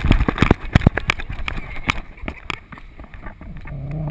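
Splashing footfalls of a miniature schnauzer running through shallow water on wet sand, heard very close from a camera strapped to the dog, as a fast irregular run of knocks and splashes that thins out and quietens after the first second. Near the end a person's voice starts, holding one low note.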